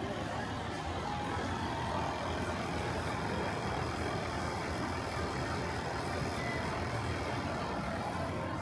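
Steady low mechanical rumble of a running motor, with no pauses or sudden sounds.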